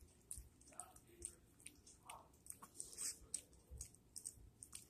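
Chihuahua licking food off a person's fingers, its mouth making faint, irregular wet clicks and smacks, a few each second.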